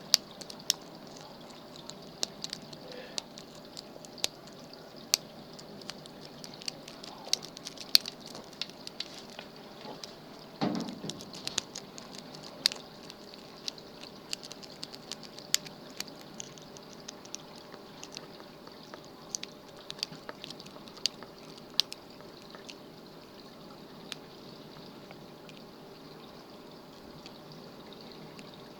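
Lock pick and tension wrench working in a lock: scattered small sharp metal clicks and light scraping, coming more often in the first half.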